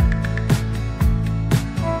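Background music with a steady beat, about two beats a second, over sustained instrumental chords.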